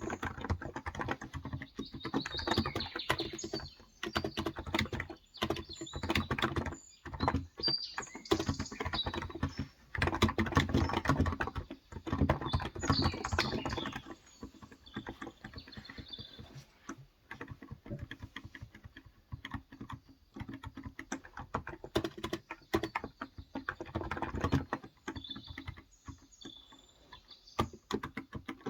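Fast typing on a Cox Endeavor tenkeyless electro-capacitive (Topre-style) keyboard with 35 g switches: quick runs of soft keystrokes with short pauses, busier in the first half and sparser later. Birds chirp faintly in the background.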